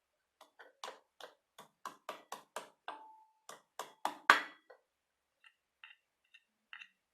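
Ginger being roughly pounded: a quick run of about fifteen strikes, three or four a second, one about four seconds in much louder than the rest and one ringing briefly. A few lighter, slower taps follow near the end.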